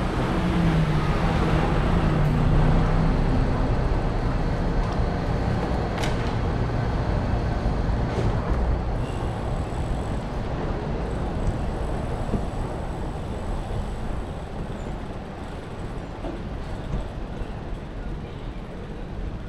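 Low rumble of a passing vehicle over city street noise, loudest in the first few seconds and slowly dying away, with a single sharp click about six seconds in.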